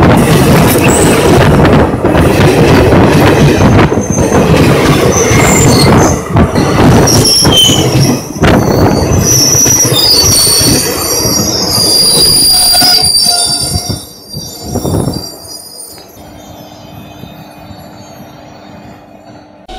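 Indian Railways coaches rolling directly overhead: a loud rumble with repeated clatter of steel wheels on the rails, and high wheel squeal in the middle part. About 14 seconds in the noise falls away suddenly as the last coach passes, leaving a much quieter low hum.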